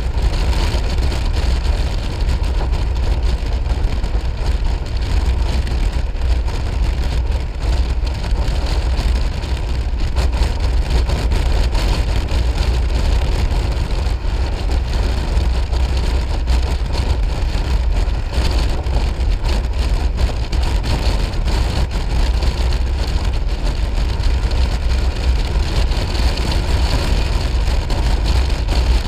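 Piaggio MP3 500 three-wheeled scooter riding at road speed: a steady, loud low rumble of wind and engine noise with a hiss above it.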